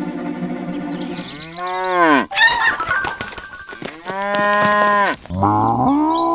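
Cattle mooing: several long calls, one after another.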